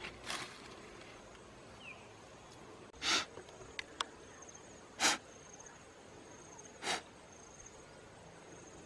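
A faint, high insect trill, pulsing on and off, comes in about halfway through. Four short hissing bursts stand out above it, the loudest about five seconds in.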